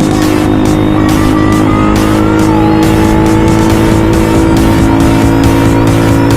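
Honda Sonic 150R single-cylinder engine running through an SJ-88 aftermarket racing exhaust while riding, holding a steady note, with music over it.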